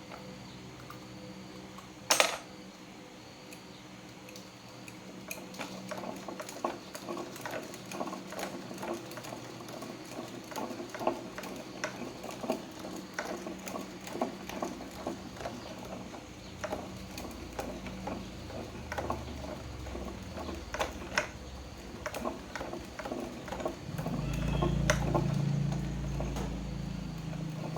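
Irregular small metallic clicks, taps and scrapes of hand work on the sump pump motor's parts, with one sharp clack about two seconds in. A low hum sounds for a couple of seconds near the end.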